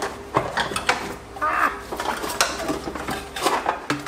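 Repeated metal clanks and knocks as an exhaust manifold with its catalytic converter is worked loose and lifted out of a car's engine bay.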